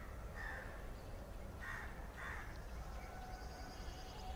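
Crows cawing: three short harsh caws in the first two and a half seconds, over a steady low background rumble.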